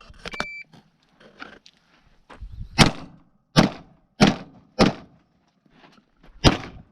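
Gunshots, five in all: four about two-thirds of a second apart starting near three seconds in, then a last one after a longer pause. A short electronic beep sounds right at the start.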